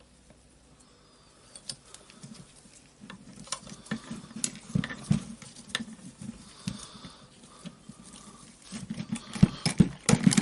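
Small metal clicks, taps and knocks of hand tools working at the ball bearing on an orbital sander's armature shaft, trying to get the bearing off. Sparse at first, growing busier, with a loud cluster of knocks near the end.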